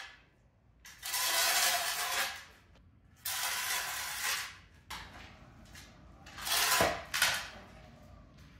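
A shovel scraping dirt and debris across a concrete floor: four long scrapes, each about a second, with pauses between them.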